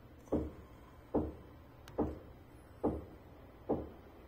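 A slow, even beat of five soft low thumps, a little more than one a second, each fading quickly, over a faint steady hum.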